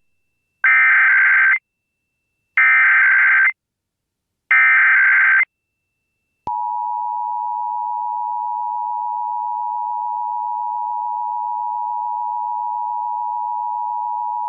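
Emergency Alert System SAME header, three one-second bursts of digital data tones, followed about six and a half seconds in by the steady two-tone EAS attention signal (853 and 960 Hz), opening a Required Monthly Test.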